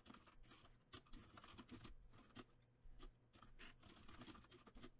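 Faint computer keyboard typing: irregular quick key clicks throughout.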